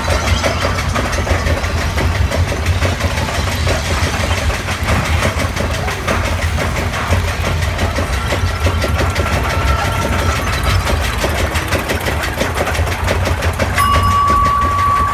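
Spinning roller coaster car climbing its chain lift hill: a steady, loud mechanical clatter of rapid clicking over a low rumble. A steady high tone joins near the end.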